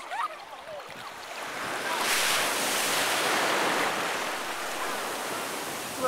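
Ocean surf: a wave washes in about two seconds in, a broad hiss that holds for a few seconds and then slowly eases.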